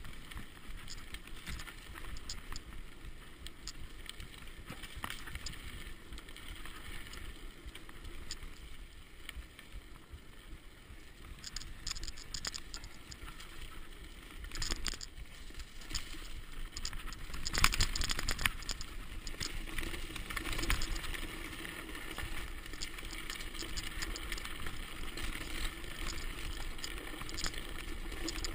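Mountain bike descending a dirt singletrack: tyres rolling over the dirt, with the bike's chain and frame rattling and clattering over bumps. It gets busier partway through, and the sharpest, loudest knocks come about two-thirds of the way in.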